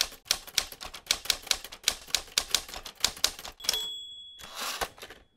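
Typewriter sound effect: a quick run of about fifteen key strikes, roughly four a second, then the carriage-return bell dings once. The carriage slides back with a short rasp, ending in a knock.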